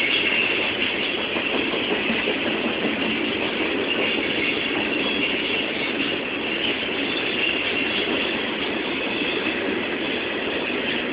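Coal hopper cars of a unit coal train rolling past, a steady, unbroken noise of steel wheels running on the rails.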